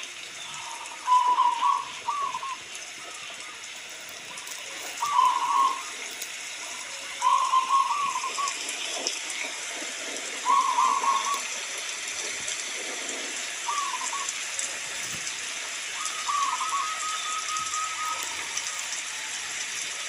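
Zebra dove (perkutut) cooing in about seven short, rippling phrases a few seconds apart, over a steady hiss of rain.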